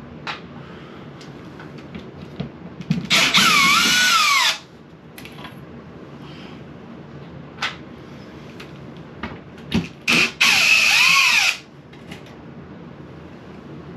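Power drill run twice in bursts of about a second and a half, its motor whine dipping and rising in pitch as the trigger is worked, with a few light knocks in between.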